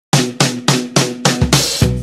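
Background music with a steady drum beat, about four hits a second, and a bass line coming in about halfway through.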